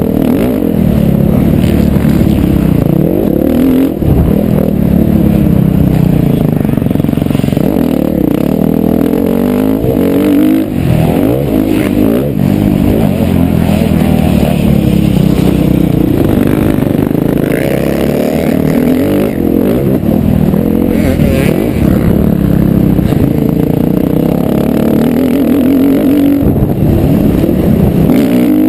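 2011 KTM 350 XC-F's single-cylinder four-stroke engine revving up and dropping back over and over as the dirt bike is ridden hard round a motocross track, heard from a helmet camera. The throttle is briefly shut off every several seconds.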